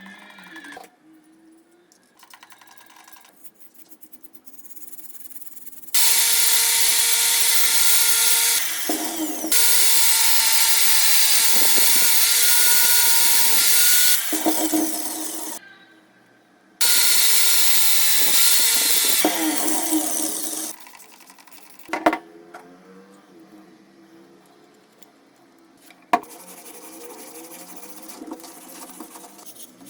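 A small handheld power tool running against a lamp part in two long bursts, the first about six seconds in and the second after a short pause, each with a steady motor whine. Quieter hand rubbing and scraping fills the gaps, with two sharp knocks near the end.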